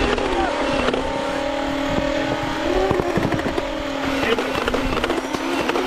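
A steady motor-like whine held at one pitch, with a few sharp clicks and faint distant shouts.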